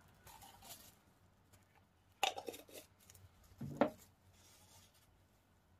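Quiet handling noises of things being moved on a plastic-covered work table: a soft rustle, then two short knocks about a second and a half apart.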